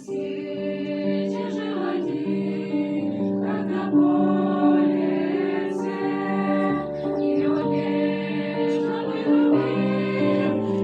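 A choir singing a Christian wedding song in Russian, the voices moving together in held chords.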